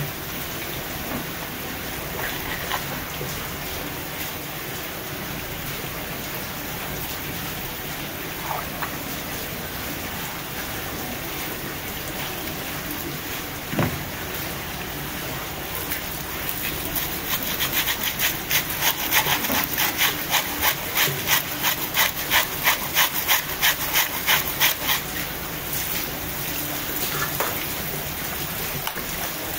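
Tap water pouring in a steady stream onto a large wahoo on a wooden cutting board as it is washed. About halfway through comes a run of rhythmic rubbing strokes, two or three a second, and there is a single knock a little before that.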